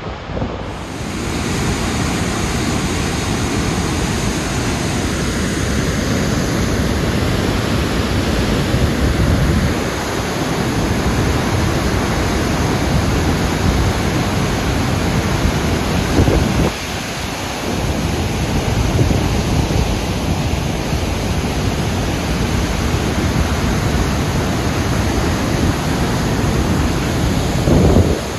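Dettifoss waterfall rushing with a loud, steady, unbroken noise of falling water, with wind on the microphone adding low rumble.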